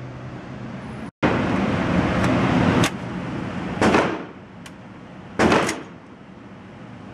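Two loud gunshots on an indoor range, about a second and a half apart, each with a short echoing tail, and a few fainter sharp cracks before and between them. The shots are led in by a loud rushing noise that stops just before the first of them.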